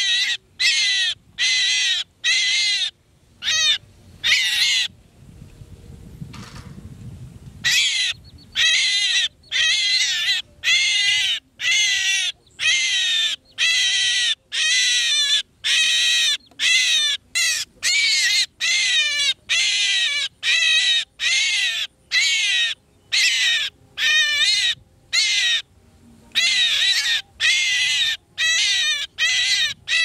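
A trapped myna held in the hand giving harsh distress calls over and over, about one to two a second. The calls break off for about three seconds near the start, where only low handling noise is heard.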